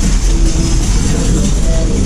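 Shop background music playing over a steady low rumble of supermarket ambience.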